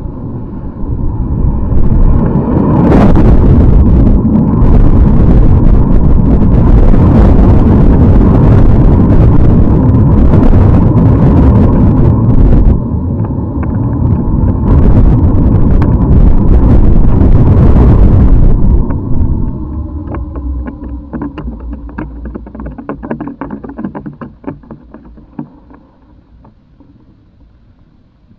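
Thousands of burning safety-match heads venting through the narrow neck of a canister, making a loud, steady rushing hiss like a smoke fountain. The hiss dips briefly in the middle. After about nineteen seconds it weakens into sputtering crackles and fades out as the matches burn out.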